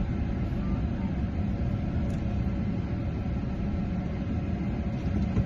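Steady low rumble with no clear events.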